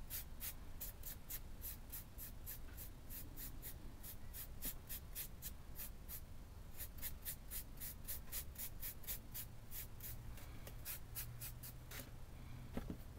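A paintbrush dry-brushing across carved bricks: a quick, even run of light scratchy strokes, about three to four a second.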